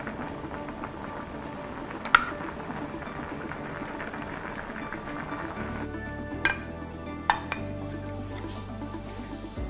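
A pot of coconut-milk stew bubbling on the burner, with one sharp clink of a metal spoon against the enamel pot about two seconds in. Near the end a ceramic bowl knocks twice on a china plate as rice is turned out. Soft background music plays throughout.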